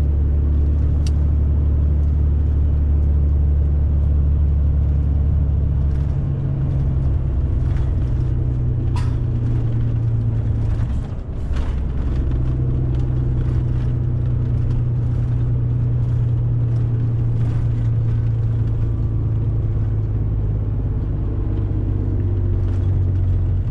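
Loaded semi-truck's diesel engine pulling up a long climb, running loud and steady. The engine note shifts about six seconds in and again near the middle, with a brief dip in level.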